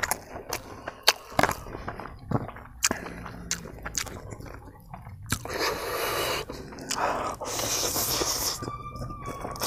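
Close-up eating sounds: wet clicks and smacks of chewing, then two long, loud slurps as instant ramen noodles are sucked in from a fork, about five and a half and seven and a half seconds in. A steady high tone begins near the end.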